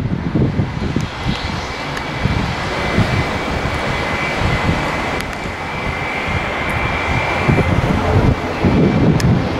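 Airbus A319 airliner's twin jet engines running as it rolls along the runway: a steady rush with a thin high whine through the middle, under gusty wind rumble on the microphone.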